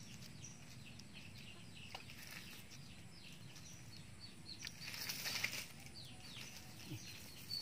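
Faint rustling of a nylon cast net and dry leaves as hands pick through it, louder for a moment about five seconds in, with birds chirping in short falling notes.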